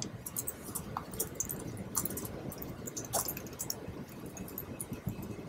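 Laptop keyboard being typed on: short, irregular key clicks in small groups, over low room noise.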